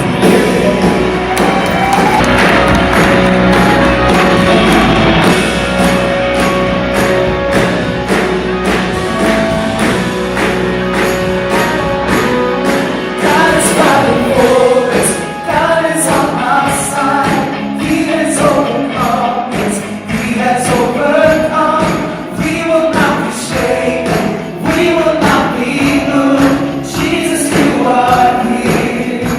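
Live worship band playing with several singers: vocals over drums, bass, electric guitar and keys, with a steady beat.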